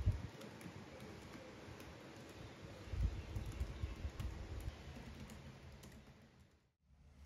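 Fingers typing on an HP laptop keyboard: a quiet, quick patter of key clicks, busiest in the middle, fading out near the end.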